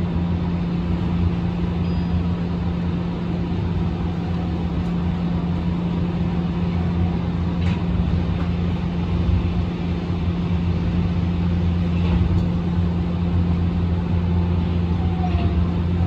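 Interior running noise of a Yui Rail (Okinawa Urban Monorail) rubber-tyred straddle-beam monorail car moving along its elevated guideway: a steady low hum with a couple of faint clicks.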